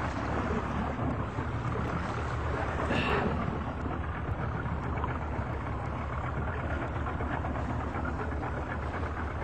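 Boat's outboard motor running steadily, a low hum under an even hiss of wind and water, with a brief louder rush about three seconds in.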